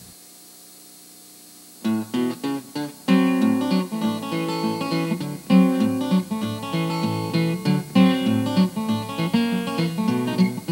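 A faint low hum for about two seconds, then background acoustic guitar music comes in with a few single plucked notes and runs on as a busy picked and strummed melody.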